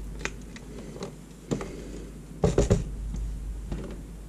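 Handling noise of a handheld digital multimeter and its clip test leads: a handful of light clicks and knocks as the meter is set down and the leads are moved about, the loudest cluster a little past halfway.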